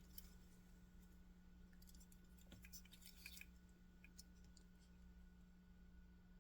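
Near silence: room tone with a steady faint hum, and a cluster of faint clicks and taps about two to three and a half seconds in.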